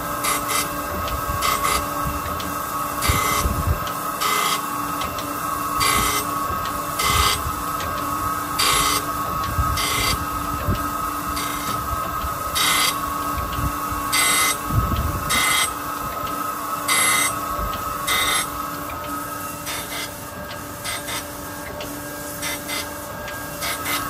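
Okamoto Accugar 124N hydraulic surface grinder running with a steady machine hum. A short grinding rasp comes each time the table carries the steel plate under the wheel, about once every second or so.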